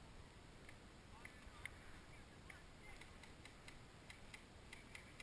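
Near silence: faint outdoor ambience with scattered, irregular faint ticks.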